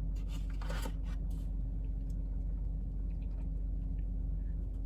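Steady low hum of an idling car engine heard from inside the cabin, with a few faint clicks and rustles in the first second and a half.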